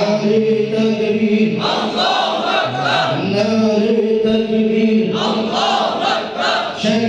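Quran recitation chanted in tajweed style: long, drawn-out melodic phrases on held notes. One phrase gives way to the next about three seconds in, and another begins near the end.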